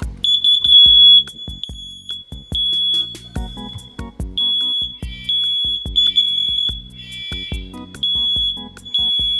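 Household smoke alarm sounding on its test button: a loud, high-pitched electronic beep repeating over and over in pulses of about half a second to a second.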